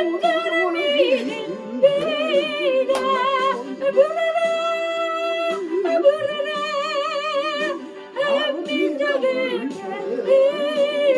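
Korean gospel song accompaniment track, with a melody line in wide vibrato over sustained chords.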